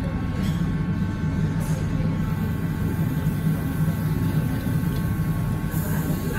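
Restaurant room tone: a steady low hum of ventilation and extractor fans, with a few faint steady higher tones above it.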